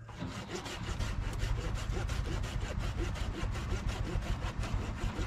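Hand pruning saw cutting through a tree branch in quick, even back-and-forth strokes, several a second.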